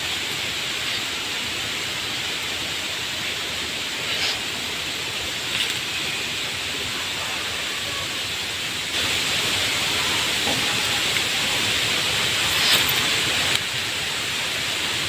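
Steady hiss of background noise with no clear source. It gets a little louder about nine seconds in, and a few faint brief sounds rise above it.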